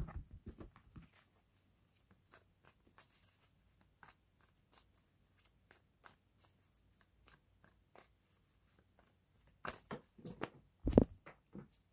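A deck of tarot cards being shuffled and handled by hand: soft, irregular flicks and taps of the cards, picking up and getting louder near the end.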